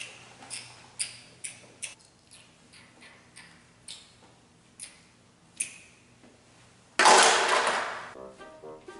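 Scattered light clicks and taps from handling a plastic toy doctor's kit. About seven seconds in comes a sudden loud rush of noise that fades over about a second, then background music starts near the end.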